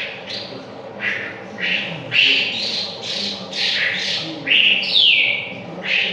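Wambi bird calling in a quick, unbroken series of short, high notes, roughly two a second. Several notes slide downward in pitch. It is a lure recording, played to set a caged bird singing continuously.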